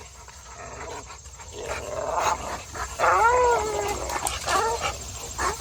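Dogs vocalizing while biting at tree branches: a drawn-out, falling whining cry about three seconds in, then a few shorter cries.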